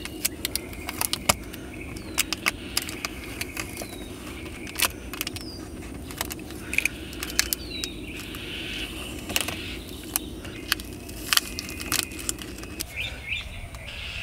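Irregular small clicks and crackles of adhesive tape and little plastic guides being peeled off a screen protector on a car's touchscreen, fingers working against the screen. A steady low hum runs underneath and cuts off about thirteen seconds in.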